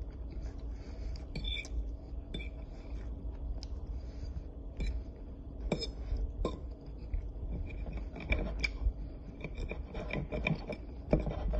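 Scattered clinks and scrapes of a metal fork against a ceramic dinner plate, over a steady low hum.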